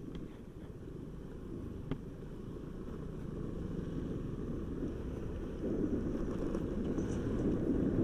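Wind buffeting the microphone of a rider on the move, a low steady rumble mixed with road and vehicle noise that grows a little louder in the last few seconds. A single sharp click comes about two seconds in.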